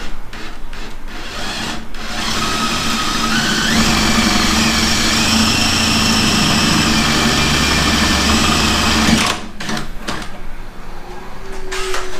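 Electric drill with a 23/64-inch twist bit boring a hole through a car's trunk lid, running steadily for about seven seconds with a slight rise in pitch at the start, then stopping suddenly.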